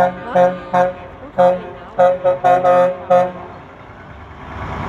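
Truck horn tooting in a quick string of short blasts, about nine in three seconds, some in rapid runs. After the horn stops, a passing vehicle's engine and road noise rises near the end.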